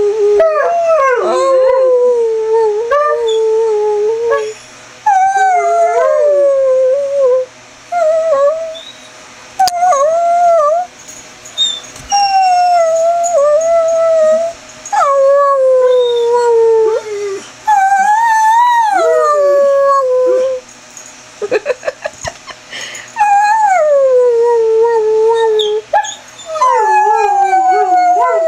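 Greyhound rooing and whining: a string of long, howl-like calls that mostly slide down in pitch, each a second or two long with short breaks between. About two-thirds of the way through there is a quick run of short, choppy sounds.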